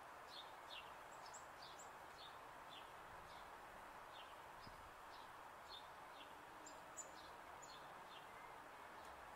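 Small birds chirping faintly, short high falling chirps two or three a second, over a steady background hiss.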